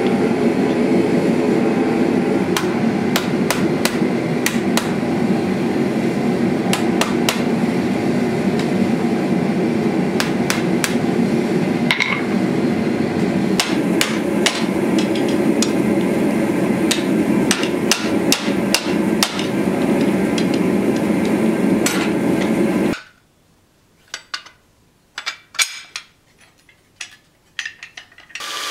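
Hand hammer striking red-hot steel on a Kohlswa anvil while bending a bowie knife's D-guard, in many irregular blows over a steady rushing noise. About 23 s in it cuts to near quiet, with a few light clicks and taps of the metal guard being handled against the blade.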